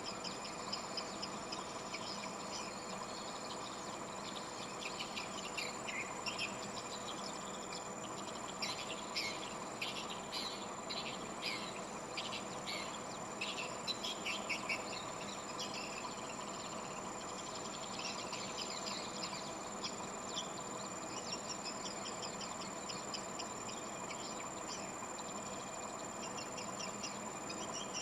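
Edible-nest swiftlets twittering: many rapid chirps overlapping in a dense chorus, busiest in the middle, over a steady high-pitched tone.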